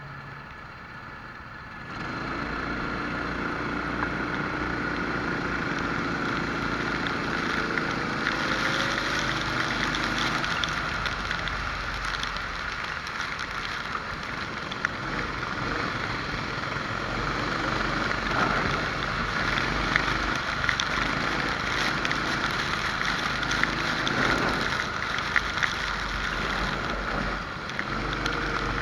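Rental kart engine running, heard through an onboard action camera, with wind noise on the microphone and the hiss of a wet track; it comes in about two seconds in after a brief quieter moment and then stays steady.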